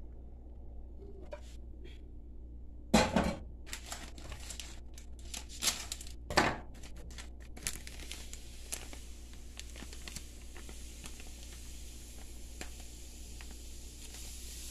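Foil gelatin-powder sachet being opened and crinkled by hand, with two loud sharp crackles about three and six and a half seconds in and lighter rustling and clicks between.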